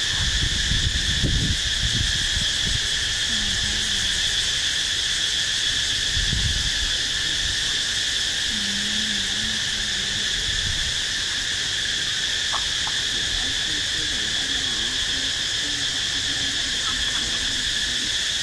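Steady, unbroken chorus of insects in the background, high and droning. Low rumbles come through in the first couple of seconds and again about six seconds in.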